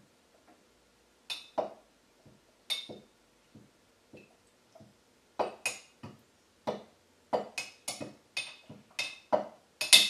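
Glassware and dishes clinking and knocking as they are handled: a string of separate sharp clinks, a few at first, then faster and louder in the last few seconds.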